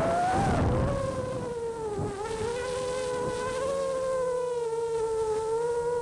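A 4-inch micro FPV quadcopter's motors and propellers whining, heard from its onboard camera, with a wind rush in the first second. The pitch drops after the first second, dips again about two seconds in, then holds fairly steady with small wavers as the throttle changes.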